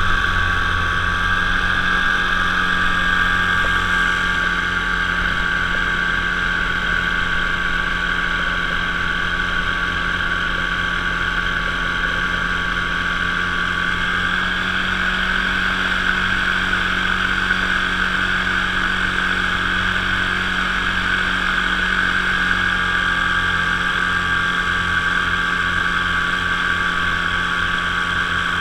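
Top80 paramotor's single-cylinder two-stroke engine and propeller running at a steady cruising throttle in flight: a constant, even buzz that hardly changes in pitch.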